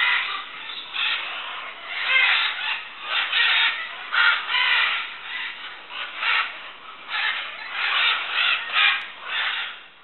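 A large flock of macaws squawking, many harsh calls overlapping with hardly a pause.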